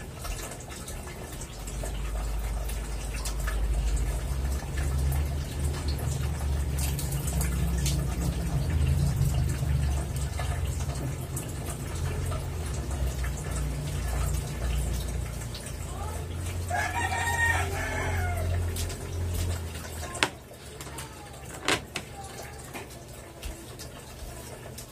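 A rooster crows once, a long call of about two seconds, over a steady low rumble that cuts off suddenly just after the crow. A couple of sharp knocks follow near the end.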